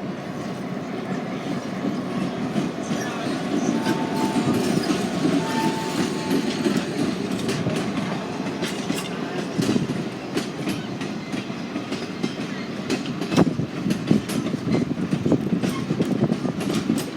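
Southern Pacific 5472's train rolling past, a steady rumble with wheels clacking over the rail joints, the clacks coming thicker in the second half. Two short faint high tones sound about four and five and a half seconds in.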